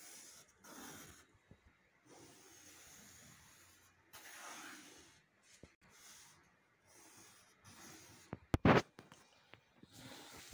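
Pencil drawing lines along a wooden straightedge on an MDF panel: several scratchy strokes of about a second each. A short, sharp knock near the end is the loudest sound.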